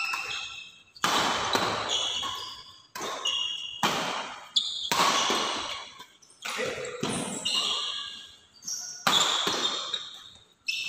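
Badminton rackets hitting a shuttlecock in a rally, a sharp smack about once a second, each echoing in a large hall. Short high squeaks of sports shoes on the court floor come between the hits.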